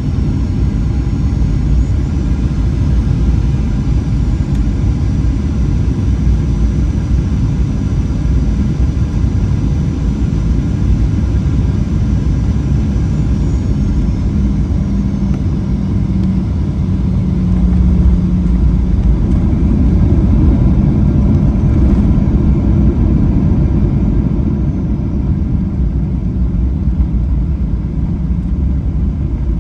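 Loud, steady low rumble of a moving vehicle, with a faint high whine that fades out about halfway through.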